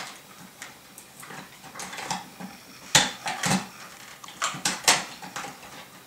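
Scattered clicks and light knocks of a plastic ceiling smoke alarm being handled as it comes off its mounting plate and is lowered on its wires, loudest about halfway through and again about a second before the end.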